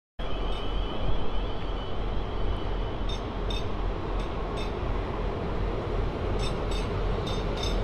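Diesel multiple unit pulling away from the platform: a steady low engine rumble with a thin high whine near the start and scattered sharp clicks.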